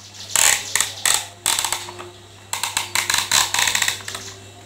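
Plastic parts of a take-apart toy truck clicking as they are worked by hand. There are two runs of quick, ratchet-like clicks, the second longer and denser.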